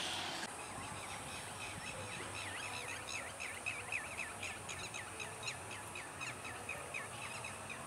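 A bird calling in a fast series of short chirps, about four a second, over a faint steady high hiss of outdoor ambience.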